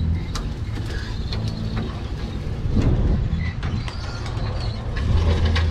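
Boat motor running steadily under way, with scattered clicks and rattles.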